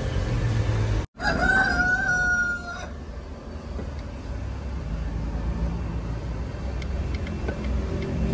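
A rooster crows once, a single held call lasting about a second and a half, starting just after a low hum cuts off sharply. A quieter low rumble with a few faint clicks follows.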